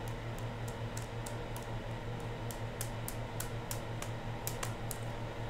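Light, sharp clicking at a computer, about three clicks a second, over a steady low hum.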